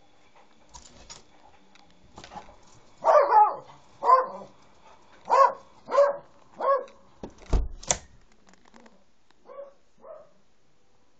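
Jack Russell terrier barking excitedly: a run of six loud barks in quick succession, then two fainter barks near the end. Faint clicks of the window handle being opened come first, and a dull thump with a sharp click falls just after the loud barks.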